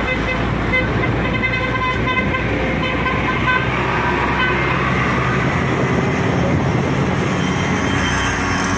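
Road traffic with vehicle horns tooting in short repeated bursts through the first half, over steady engine and road noise.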